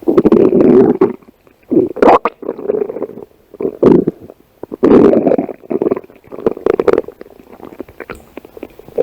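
A person's stomach growling: a string of irregular rumbles, some brief and some lasting about a second, with short pauses between them.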